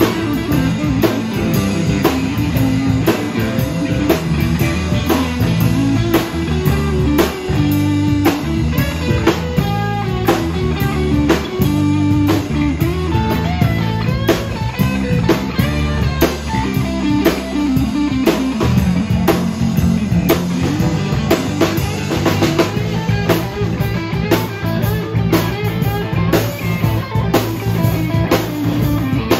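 Live rock band playing: two electric guitars, electric bass and drum kit, with steady drum hits under the guitars.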